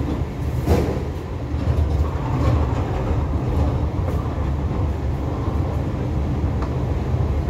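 Steady low rumble of a cargo ship's machinery, with a sharp knock about a second in and a fainter one near the end as crates of produce are handled.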